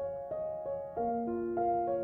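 Background piano music: a calm melody of single notes and chords, each note struck and left to ring as the next one comes in.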